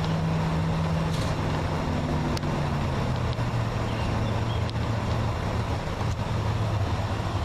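Parked train's locomotive engine running steadily with a low hum that steps down in pitch about two to three seconds in, with a few faint clicks.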